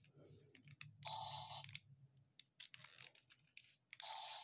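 Power Rangers Dino Thunder Brachio Staff toy playing a short electronic sound effect twice, about three seconds apart, with light plastic clicks from its parts being worked by hand in between.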